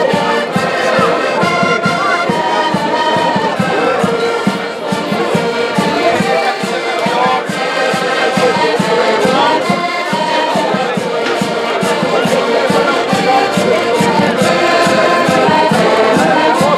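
An ensemble of accordions playing a folk tune together over a steady beat.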